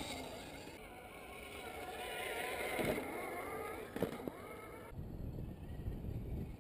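Brushed electric motor of an RC scale crawler (Tekin 35T) whining as the throttle is worked, its pitch rising and falling, with a sharp knock about four seconds in. Near the end the whine gives way to a rougher low rumble.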